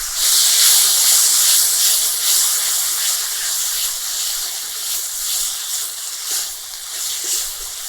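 Tomato paste sizzling in hot oil with onion, ginger-garlic paste and ground spices in a kadai, a loud steady hiss that slowly eases as the masala fries down.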